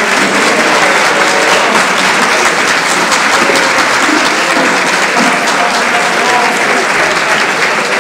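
A group of people applauding, a steady clatter of clapping with voices talking underneath.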